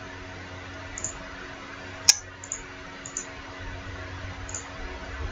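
Computer mouse clicks: one sharp click about two seconds in and a few faint ticks, over a steady low hum.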